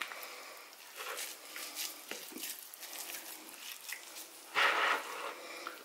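Hands squishing and pressing a soft cauliflower dough together into a ball, with faint irregular sticky handling sounds and a louder brief rustle about four and a half seconds in.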